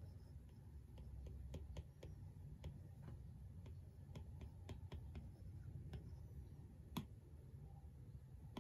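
Apple Pencil tip tapping and ticking on an iPad's glass screen during handwriting: faint, irregular clicks, with one sharper tap near the end, over a low room hum.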